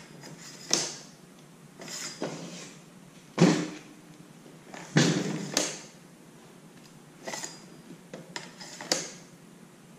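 Knocks and clunks of a PVC tube and a metal cart tube being handled, slid apart and fitted together. There is a series of separate sharp knocks, the loudest about three and a half seconds in and another about five seconds in.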